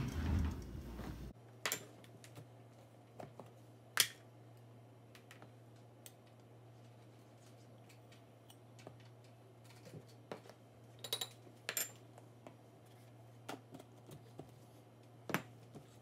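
Faint, scattered small clicks and taps over a steady low hum. The loudest click comes about four seconds in, and a few more cluster later on.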